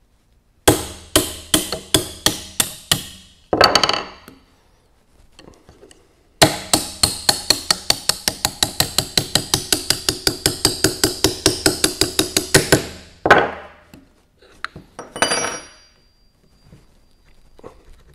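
Small ball-peen hammer tapping a tool against a digit wheel on a Monroe calculator's steel shaft, knocking the stuck wheel off. About six sharp blows come first, then a fast run of light taps for about six seconds, a single blow, and a brief rattle with a ringing note near the end.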